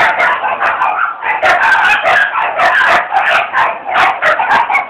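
Dog 'talking': a continuous run of yips, whines and grumbling vocal sounds that keep changing pitch without a break.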